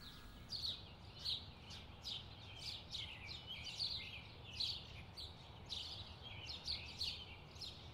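Small songbirds chirping, a steady run of short, high, downward-sliding notes about two or three a second over faint background noise.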